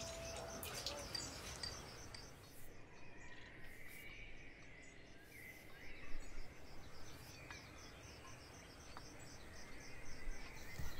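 Outdoor rural ambience: insects chirping in a steady, rapid, high-pitched pulse, with a few faint bird calls in the middle.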